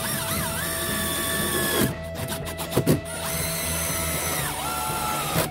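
Milwaukee cordless driver running in two bursts as it drives the mounting screws of a 7-way trailer plug: a whine for about two seconds that stops, then a second run starting about three seconds in that slows as the screw seats.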